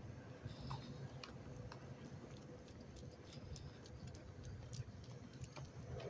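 Faint, irregular light clicks and jingles from a walking dog's collar tags and leash, over a low steady rumble.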